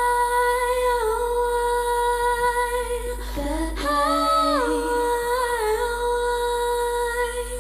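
Layered female a cappella voices singing wordless harmonies in two long held phrases, each stepping down in pitch, over a steady low sung note.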